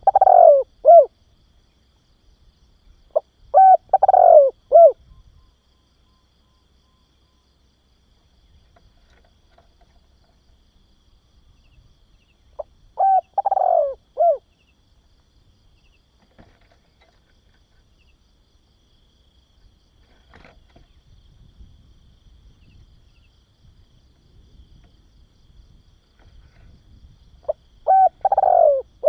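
Spotted dove cooing: a short phrase of a few notes, the middle note longest and falling in pitch, given four times with long pauses between.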